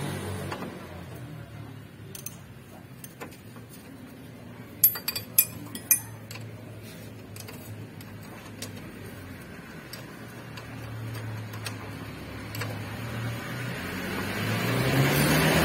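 Ratchet wrench and spanner clicking and clinking on the bolts of a new lower ball joint as it is fastened to the lower control arm, with a quick run of sharp metal clinks about five seconds in. A low rumble builds near the end.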